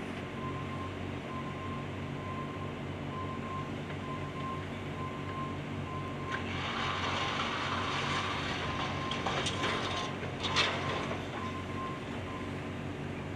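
Diesel excavators running steadily, with a backup alarm beeping in a regular pulse. From about six seconds in, a louder rough noise as the hydraulic breaker works the broken concrete of the bridge deck, with two sharp knocks near the end of it, the second the loudest.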